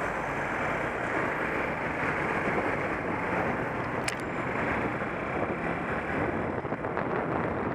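Wind rushing over a helmet-mounted camera microphone while riding a Honda CBF125 motorcycle, its single-cylinder engine running underneath. A short click about four seconds in.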